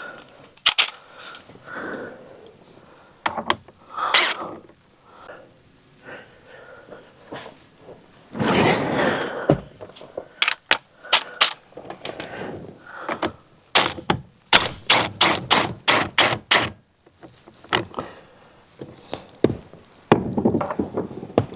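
Hand tools clicking and knocking against the steering wheel hub while the airbag's fasteners are worked loose. There is a brief scraping rustle about eight seconds in, and a little past halfway a run of about seven evenly spaced clicks, roughly three a second.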